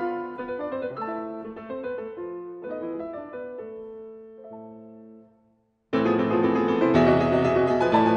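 Steinway grand piano played solo: a quiet passage of single notes and chords fades away, breaks off into a moment of silence, and about six seconds in a loud passage of full chords enters abruptly.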